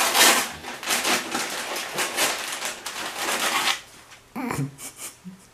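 Crinkly white gift-wrapping paper rustling and tearing as a present is pulled open by hand, stopping about three and a half seconds in.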